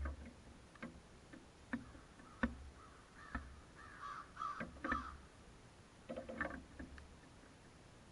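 A crow cawing, short rough calls in a couple of clusters, among several sharp knocks and taps spread through the first five seconds.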